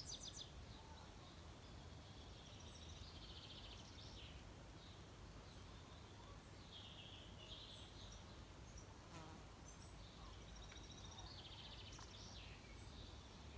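Quiet outdoor garden ambience: faint, scattered chirps and short trills of small birds over a low steady rumble.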